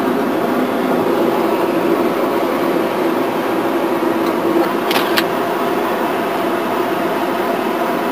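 Steady road and engine noise inside a car cabin at highway speed, with two quick clicks about five seconds in.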